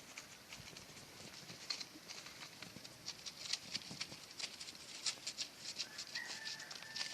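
Footsteps crunching and crackling on dry leaf litter, many small irregular crisp clicks. A faint, short, steady high tone comes in near the end.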